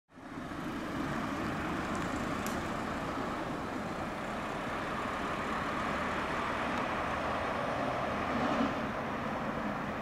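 Fire engine driving towards the listener along a road: a steady diesel engine rumble with tyre and road noise, fading in at the start.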